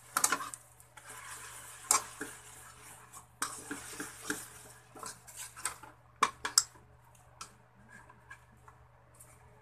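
Metal spatula scraping and clinking irregularly against a wok while stirring and mashing salted egg in melted margarine, with a few sharp knocks. Faint sizzling from the foaming fat.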